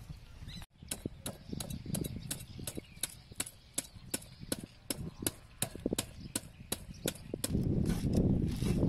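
Kitchen knife scaling a whole fish on a wooden chopping board: quick, regular scraping strokes, about three a second, each ending in a sharp click. Near the end the scraping gets louder and continuous.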